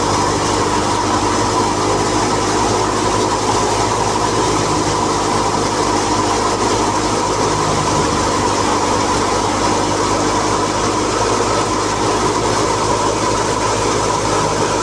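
Wheat thresher running steadily while threshing: a loud, constant mechanical drone with a steady hum, without pause or change.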